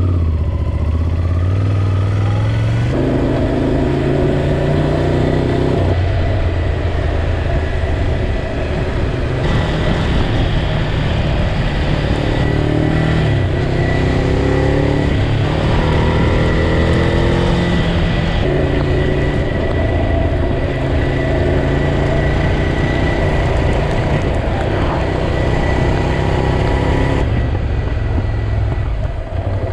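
Ducati Scrambler Desert Sled's 803 cc air-cooled L-twin under way. The engine note climbs and then drops back several times as the rider works through the gears, over a steady rush of road and wind noise.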